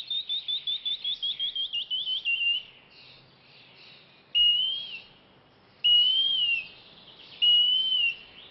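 Birdsong: a fast run of about sixteen short, rising chirps lasting nearly three seconds, then three longer arched whistles about a second and a half apart.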